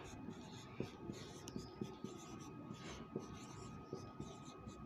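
Marker pen writing on a whiteboard: faint, short scratching strokes of the tip across the board, one after another.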